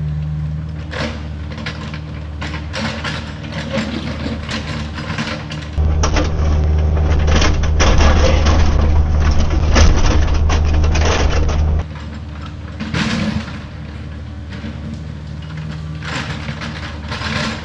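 Diesel engine of a Kubota compact machine running under work, with irregular crunching and clanking of gravel and rock against a steel bucket. The engine jumps louder about six seconds in and drops back sharply near twelve seconds, with a short burst of noise about a second after that.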